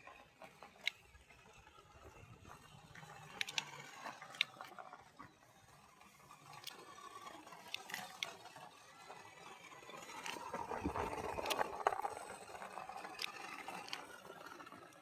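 Scattered light clicks and scraping, busier about ten to twelve seconds in.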